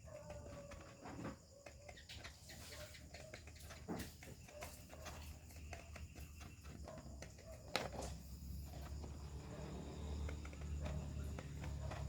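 Scattered light taps and clicks of handwork, with a low hum coming in and growing louder about eight seconds in.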